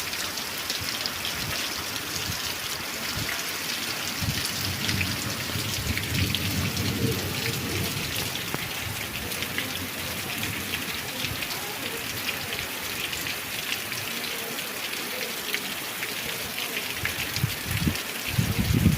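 Heavy rain falling steadily, a dense patter of drops hitting surfaces. A low rumble swells a few seconds in and again near the end.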